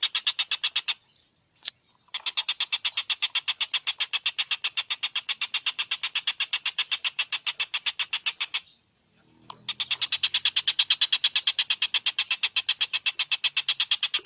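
Tengkek buto kingfisher giving its fast, rattling chatter: a rapid, even string of sharp, high notes, broken off by two short pauses.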